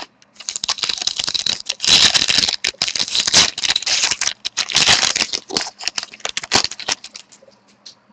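Foil trading-card pack wrapper being crinkled and torn open by hand: a dense, crackling rustle that stops about seven seconds in.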